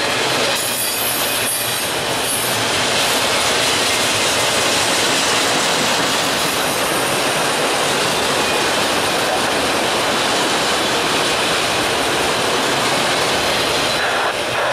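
Freight train of autorack cars rolling past: a steady, unbroken noise of steel wheels running on the rails.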